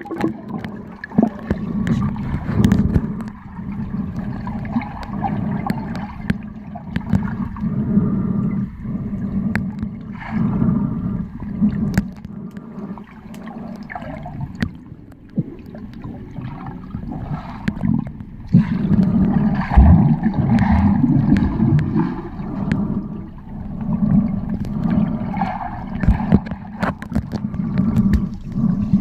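Muffled underwater noise picked up by a submerged camera: water churning and gurgling in an uneven low rumble, with irregular clicks and knocks throughout.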